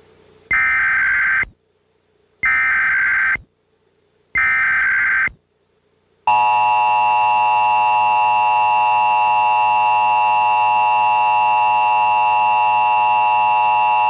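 Emergency Alert System alert: three one-second bursts of the SAME data header (a buzzing screech), followed by the steady two-tone EAS attention signal held for about eight seconds, announcing an emergency message.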